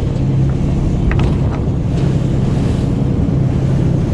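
Fishing boat's engine running with a steady low hum, with wind and sea noise on the microphone.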